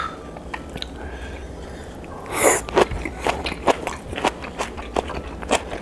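A slurp of soup broth from a small bowl about two seconds in, followed by chewing with quick, wet clicking sounds.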